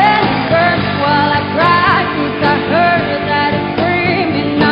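A woman singing a pop ballad live over a full band backing, holding long notes and sliding between them.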